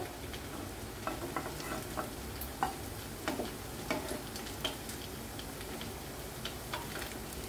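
Fritters sizzling steadily in hot oil in a non-stick frying pan, with scattered light taps and scrapes of a plastic spatula as the fried fritters are lifted out.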